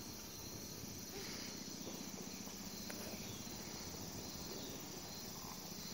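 Steady, high-pitched chorus of insects such as crickets, continuing without a break.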